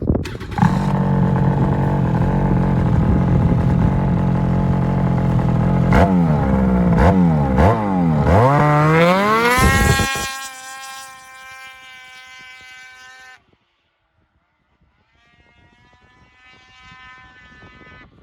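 Ski-Doo Renegade 850 two-stroke twin engine, fitted with an MBRP Race can exhaust, starting up and settling into a steady idle about half a second in. Around the middle it is revved in a few quick throttle blips, then held at a higher speed before dropping to a quieter steady note that cuts off suddenly. A fainter engine note comes back near the end.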